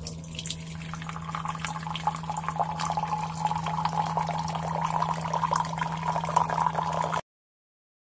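FunHom instant hot water dispenser pouring a stream of water into a mug, over a steady low hum from the machine. It grows slightly louder as the mug fills, then stops abruptly near the end.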